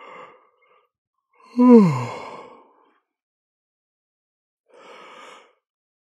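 A person yawning: a loud yawn about one and a half seconds in, its voiced sound falling in pitch and trailing off into a breathy exhale. A quiet breath is drawn in near the end.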